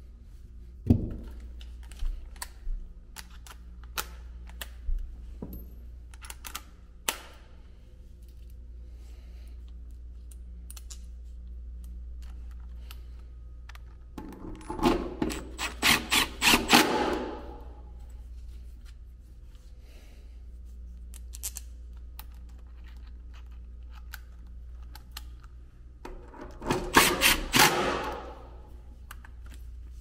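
Cordless driver run in a quick series of short bursts, twice, about halfway through and near the end, driving the blower motor's mounting hardware. Before that, scattered light clicks of small metal parts and tools being picked up and set down.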